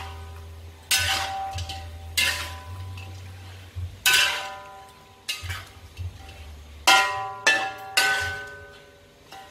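Metal spatula scraping and striking the inside of an iron wok while stir-frying frog pieces, about eight strikes, each one leaving the wok ringing briefly.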